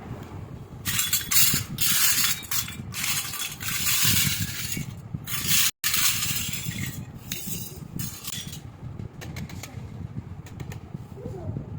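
Toy kitchen pieces and their packaging being handled, with bursts of rustling and scattered clicks and clinks. The sound is loudest in the first half and is cut off abruptly a little before halfway. It then continues more softly as occasional light clicks.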